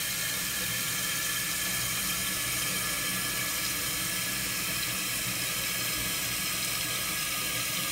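Toilet tank refilling through a newly installed Fluidmaster fill valve after a flush: a steady hiss of water running into the tank.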